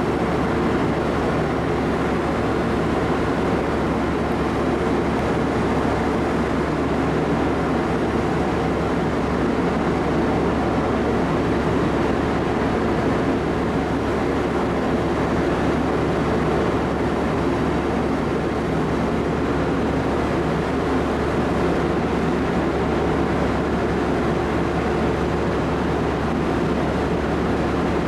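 Steady, even rumble and hum of a large car ferry's machinery heard on its upper deck, running without change as the ship berths.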